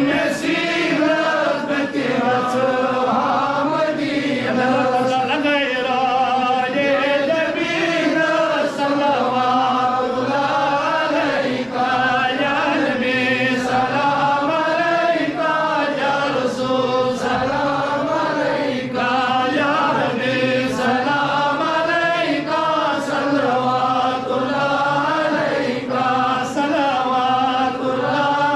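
Several voices chanting together in one continuous melodic chant, the pitch rising and falling in repeated phrases.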